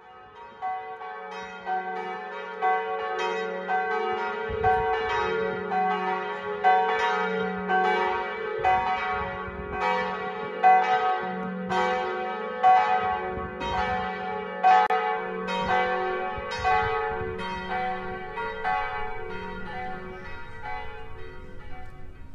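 Church bells pealing: several bells of different pitch struck in turn, roughly one stroke a second, over a long ringing hum. The strokes die away near the end.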